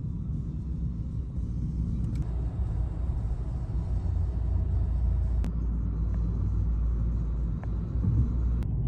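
Road noise heard inside a moving car: a steady low rumble of tyres and engine, with a few faint ticks.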